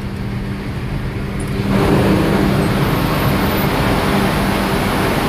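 Steady din of a large container ship's engine-room machinery, a drone with a constant low hum. About two seconds in it grows much louder and fuller as the door into the engine room opens, then holds steady.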